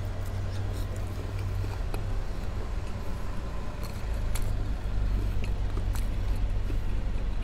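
Someone chewing pork ribs, heard as faint scattered mouth clicks over a steady low hum.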